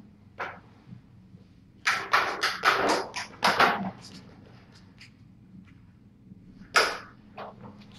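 Kittens pouncing and scrabbling on a plastic ball-track cat toy, giving short knocks and scuffles: one near the start, a quick run of them about two to four seconds in, and another near the end.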